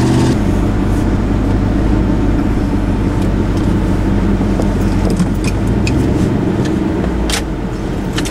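Pickup truck driving, heard inside the cab: steady engine and road noise with a few small rattles and clicks.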